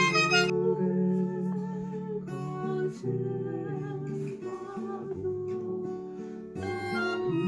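Saenghwang, a Korean bamboo mouth organ, playing a slow melody in sustained chords of several held reed tones at once. The tone turns duller and softer about half a second in and brightens again near the end.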